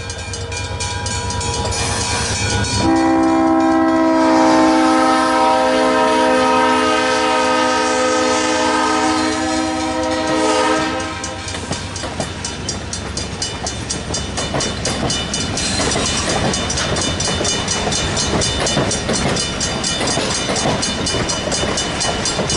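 Wilmington & Western Railroad train sounding a long multi-note horn for the crossing, which cuts off about eleven seconds in. The train then rolls by, its wheels clattering steadily over the rails.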